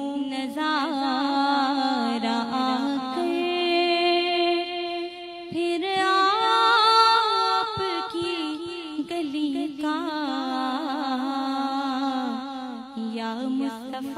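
A woman singing a naat, an Urdu devotional poem in praise of the Prophet, in a long, drawn-out melismatic line that bends and holds its notes, over a steady low drone.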